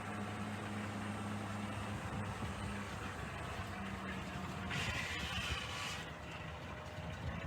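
A heavy machine's engine running: a steady low hum for the first two seconds that turns rougher and uneven, with a short burst of hiss about five seconds in.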